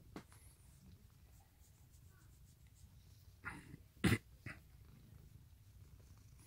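Domestic cat purring steadily as a low rumble while its head and cheeks are scratched. A little past the middle comes a brief scuffle of rustling, with one sharp bump as the loudest sound.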